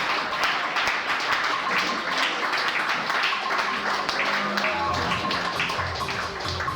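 Live electronic music with a dense, crackling texture of irregular clicks. A pulsing bass comes in near the end.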